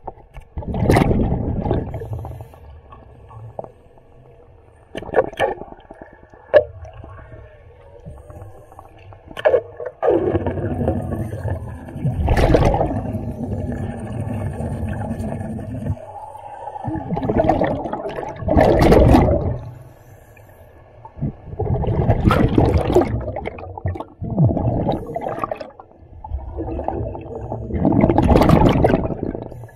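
Underwater bubbling and hissing in irregular bursts of one to several seconds over a low rumble, one stretch lasting about six seconds.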